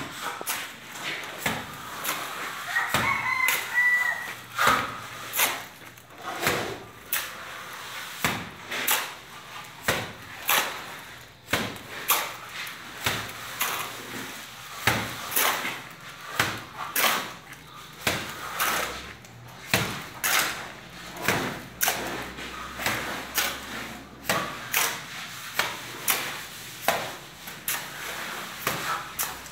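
Wet cement plaster flung from a trowel onto a concrete block wall, landing in sharp slaps about once a second, between which the trowel scrapes up more mortar from the floor.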